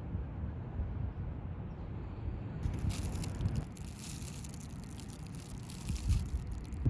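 Low, uneven wind rumble on the microphone outdoors. A bright hiss with fine crackling comes in about two and a half seconds in and stops about six seconds in.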